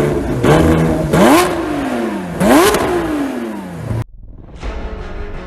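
Lamborghini Aventador SVJ's naturally aspirated V12 revved in three sharp blips, each climbing fast and then dying away slowly, until the sound cuts off abruptly about four seconds in and music takes over.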